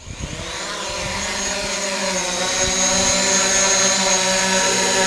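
DJI Mavic Pro quadcopter's four motors and propellers spinning up for take-off, growing louder over the first couple of seconds and then holding a steady whine as the drone lifts off and hovers.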